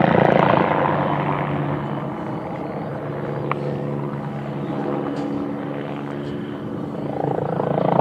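MBB Bo 105P helicopter flying a display overhead, its rotor and twin turboshaft engines heard as a steady drone. The drone is loudest at the start, eases off through the middle and grows again near the end.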